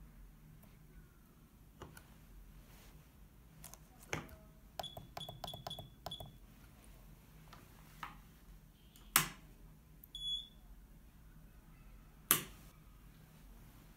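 Key-press beeper of a DDCSV1.1 CNC controller: a quick run of about six short, high beeps on one pitch, then a single beep a few seconds later, with button clicks and two sharper clicks in between.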